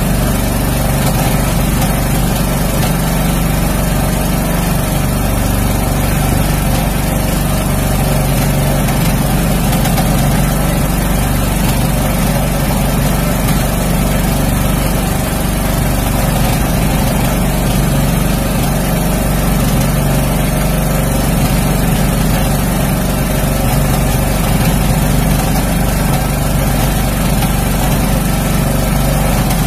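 Small engine aboard a motorized outrigger fishing boat running steadily at an unchanging speed.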